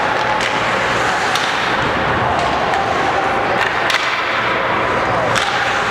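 Ice hockey play in an indoor rink: a steady din of skates on ice and crowd voices, with several sharp clicks of sticks and puck.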